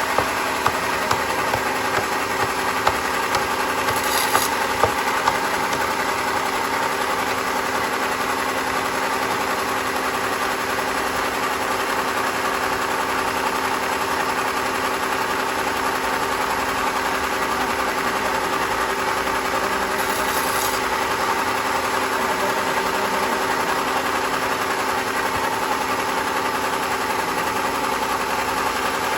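Sawmill machinery running steadily: an engine hum with several steady tones, and a few sharp knocks in the first five seconds.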